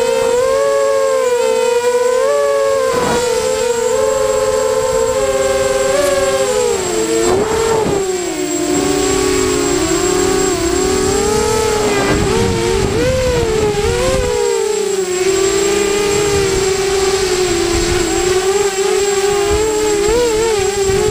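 A multirotor drone's electric motors and propellers whining in flight, heard from the onboard camera. Several close tones drift up and down against each other as the motors change speed to steer the craft, over low wind rumble on the microphone.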